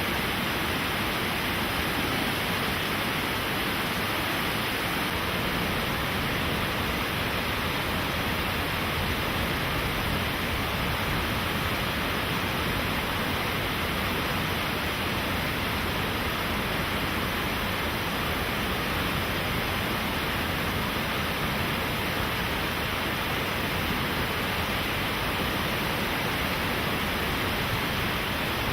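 Steady, even rush of flowing water, unbroken throughout.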